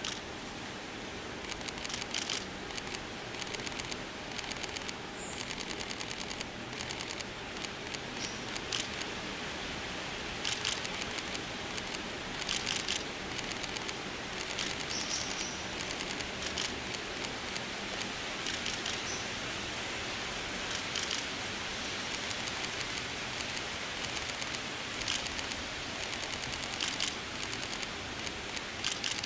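Repeated bursts of rapid camera shutter clicks, like a DSLR firing in continuous mode, coming every second or two over a steady hiss.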